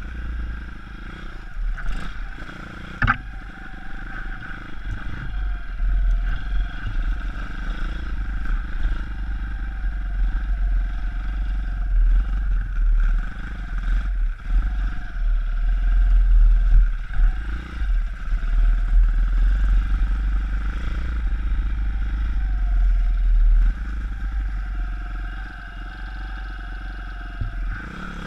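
Single-cylinder four-stroke YX 160cc pit bike engine running steadily at moderate revs under way on a dirt trail, kept off high revs while the new engine is run in. Two sharp knocks from the bike about two and three seconds in, over a heavy low rumble.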